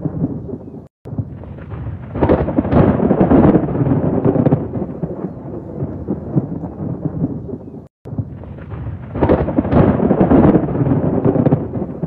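Heavy thunderstorm: steady pouring rain with two long rolls of thunder, the first swelling about two seconds in and the second about nine seconds in. The sound cuts out to silence for a split second twice, near the start and about eight seconds in.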